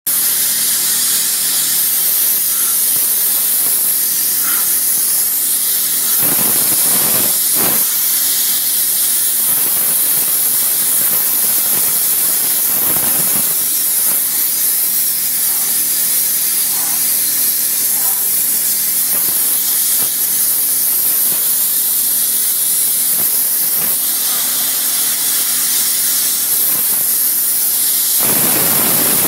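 Jet of a steam cleaner's hand gun hissing steadily as it blasts caked mud and road salt off a truck's painted tailgate, swelling fuller a few times as the jet strikes the panel more directly.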